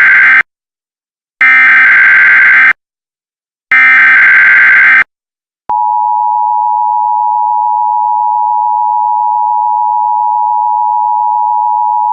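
Emergency Alert System signalling: the end of one harsh, buzzing digital data burst, then two more of about a second each with short silent gaps (the SAME header tones). Just under six seconds in, the steady two-tone EAS attention signal begins.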